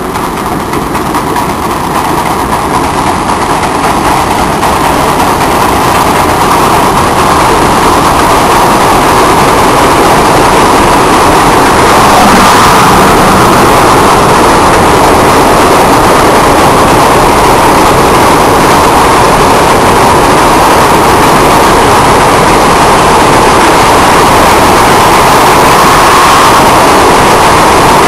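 Paducah & Louisville freight train running loud and close, a steady rushing rumble that grows louder over the first several seconds, then holds level.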